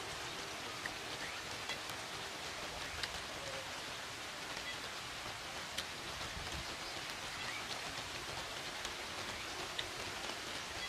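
Steady outdoor background hiss with scattered faint clicks and ticks.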